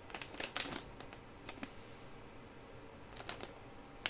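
Faint handling of a plastic soldering-iron retail packet: a few scattered light clicks and crinkles as it is held and turned, with quiet gaps between them.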